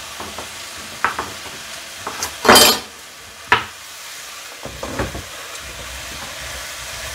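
Chef's knife knocking a few times through a carrot on a wooden cutting board, with one loud scraping stroke about halfway, a sharp click after it, then carrot pieces dropping into a pot. A steady sizzle of onion frying in oil runs underneath.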